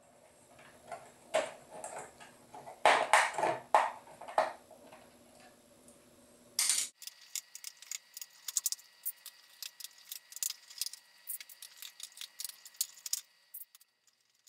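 Small hex driver backing screws out of a DJI Phantom's plastic arms: light clicks and knocks of tool and screws, loudest about three to four seconds in, then a long run of quick light ticks.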